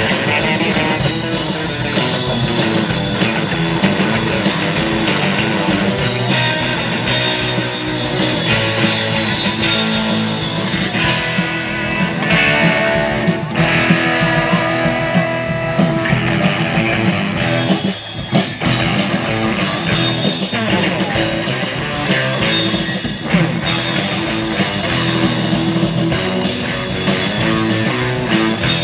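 Live surf-rock instrumental played by a band: electric guitars and bass over a drum kit. The music dips briefly about eighteen seconds in.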